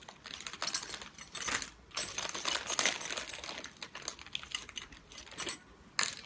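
Small screws and metal parts clicking and clattering as they are handled and picked out of a toolbox, in quick irregular clicks with a short pause near the end.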